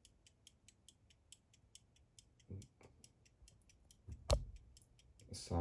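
The verge fusee movement of a 1710s Henry Massy pocket watch ticking, about five sharp ticks a second, running after being wound. A louder knock comes about four seconds in, with a fainter one a little before.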